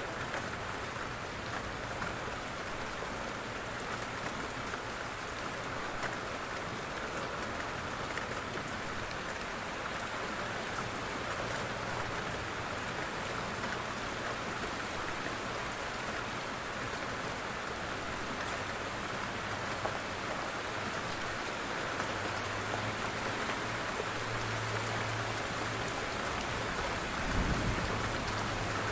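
Heavy rain falling steadily on a surface, an even rushing patter. Near the end a low thunder rumble comes in, swelling to a short deeper boom.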